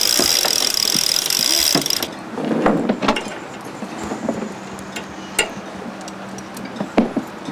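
Sailboat winch ratcheting steadily as a halyard is hauled in, cut off abruptly about two seconds in. After that come a few sharp metal clicks of a snap shackle being handled.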